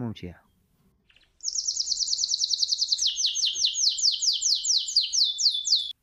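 A songbird singing: a fast, high trill of rapidly repeated notes starts about a second and a half in, then changes about halfway into a run of falling whistled notes, about five a second, cut off suddenly near the end.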